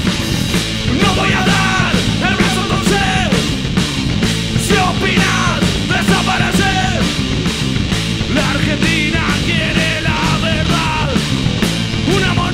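Rock band playing live at full volume, with a steady drum beat and yelled vocals.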